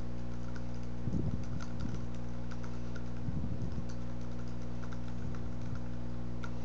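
Computer keyboard typing: irregular quick keystroke clicks, over a steady low electrical hum.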